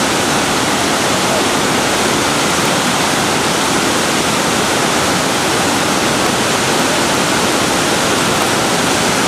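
Fast mountain river rushing over rocks: a loud, steady, unbroken wash of water noise.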